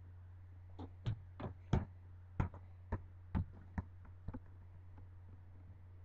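Basketball thudding against concrete paving slabs, about nine irregular bounces and knocks that stop a little past halfway, over a steady low hum.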